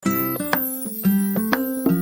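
Background music: a bright keyboard-like melody of short plucked or struck notes changing every quarter to half second.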